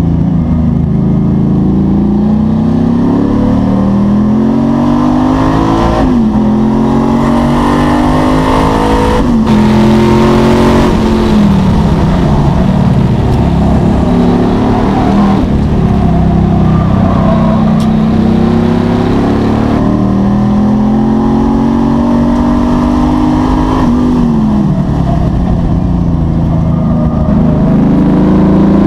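A high-performance car's engine heard from inside the cabin, driven hard on a track. Its pitch climbs steadily under acceleration, then falls away sharply about four times.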